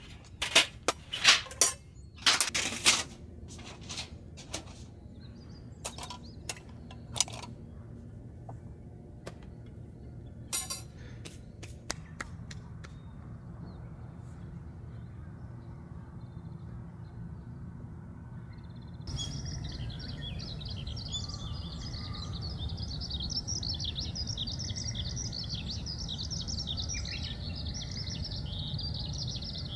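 A run of sharp knocks and clicks, loudest in the first few seconds and thinning out by about twelve seconds in. Then, from about two-thirds of the way through, a steady chorus of chirping birds over a low outdoor rumble.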